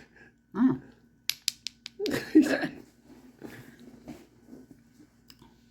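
A quick run of sharp, crisp snaps and clicks from brittle dalgona sugar candy being cracked and bitten, with a few smaller clicks after.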